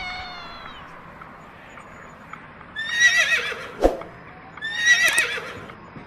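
Two quavering, high-pitched animal calls about two seconds apart, with a short sharp click between them.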